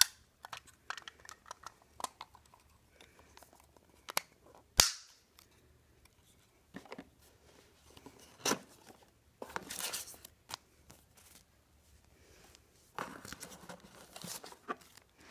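Unboxing handling noises: clicks and knocks of a plastic camera housing and a cardboard box, with a single sharp snap about five seconds in as the loudest sound. Later there are stretches of cardboard and paper rustling as the box is opened and its contents are pulled out.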